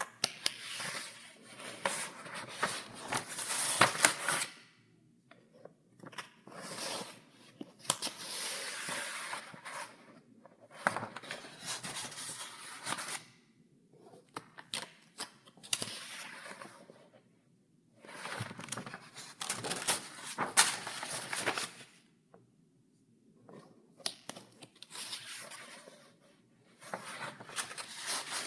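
Paper pages in a file being turned one after another: a crisp rustle and crackle for each page, separated by short pauses.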